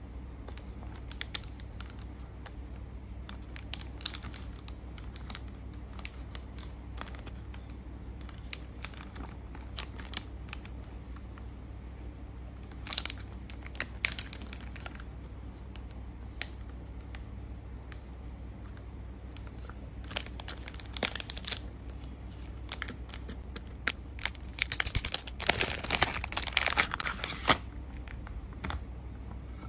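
Hands handling a diecast model car's card sleeve and clear plastic display case: scattered rustles and clicks, with longer bouts of plastic crinkling about 20 seconds in and again near the end, over a steady low hum.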